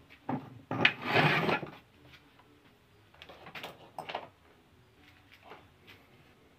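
Tools and metal parts being handled and shifted on a wooden workbench: a loud scrape lasting about a second near the start, then a few lighter knocks and clatters.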